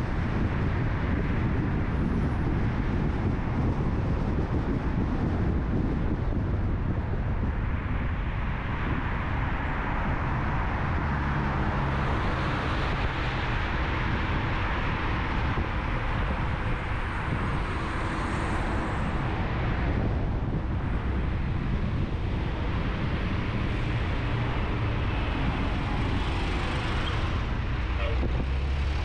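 A car driving through city traffic: a steady rumble of wind and tyre noise with the sound of surrounding traffic. The hiss swells about halfway through and eases again.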